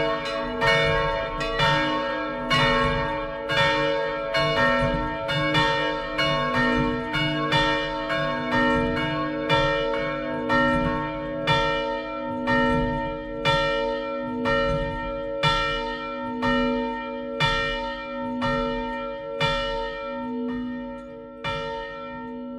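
Three swinging bronze church bells ringing together in full peal: a 370 kg bell tuned to b¹ and a 195 kg bell tuned to c², both cast by the Fischer brothers of Trnava, and a small 37 kg bell by Ján Ernest Christelli. Clapper strokes come about twice a second over overlapping, humming tones, and grow fewer and weaker toward the end.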